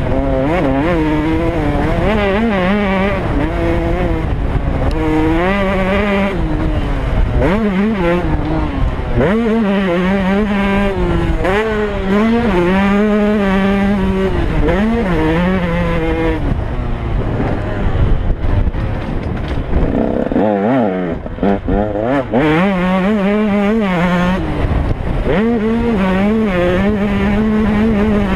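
A 2015 KTM 125 two-stroke single-cylinder motocross engine being ridden hard on a track, its note repeatedly climbing and falling as the rider works the throttle through the gears. The engine backs off for a few seconds about two-thirds of the way through, then picks up again. Wind rumbles on the microphone throughout.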